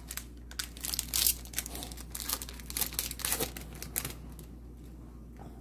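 Crinkling and rustling of trading cards and their packaging being handled, a quick run of short crackles that dies down after about four seconds.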